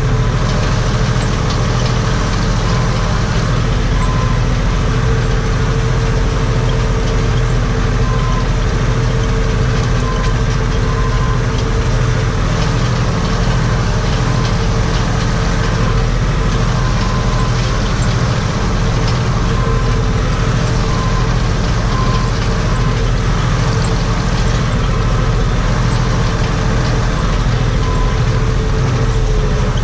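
Steyr 964 Turbo tractor's turbo diesel engine running steadily at working speed, heard from inside the cab, with a steady whine over the engine drone.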